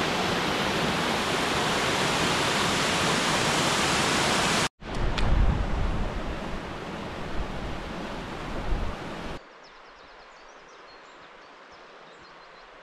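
Waterfall rushing, a loud steady noise of falling water that cuts off suddenly nearly five seconds in. After a brief gap comes a stream running over rocks with a low rumble underneath. At about nine and a half seconds this drops to a much quieter outdoor hush with faint high chirps.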